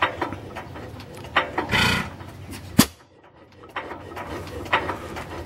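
1908 Sta-Rite 4.5-horsepower stationary gas engine running very slowly, a pop from each firing coming about once a second, with one sharper crack near the middle.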